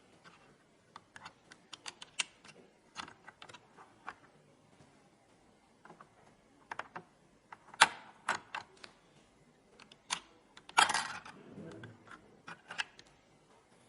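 Irregular light clicks and taps of PC hardware being handled, with a sharper clack about eight seconds in and a brief scraping rustle around eleven seconds.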